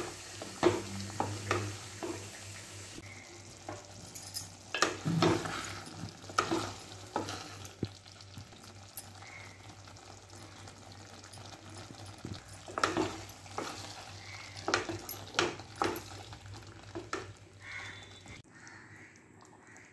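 Spatula stirring thick chicken korma gravy in a metal pot, with irregular scrapes and knocks against the pot in several spells of stirring and the curry sizzling.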